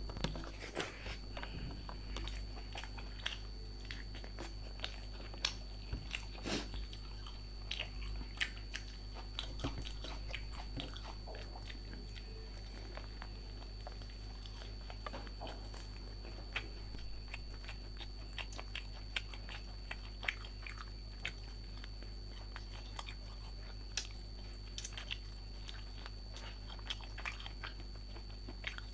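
Close-miked chewing and biting of food, with irregular crunches and wet mouth clicks throughout. A steady faint electrical hum and high whine sit underneath.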